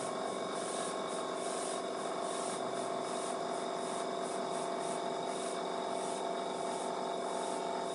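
Airbrush compressor running steadily: a buzzing hum with a hiss of air over it.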